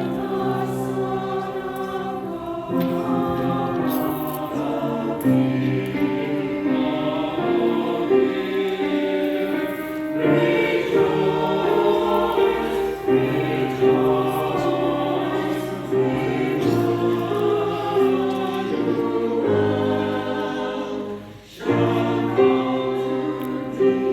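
Background music: a choir singing a gospel song over steady chords, with a brief drop in level about 21 seconds in.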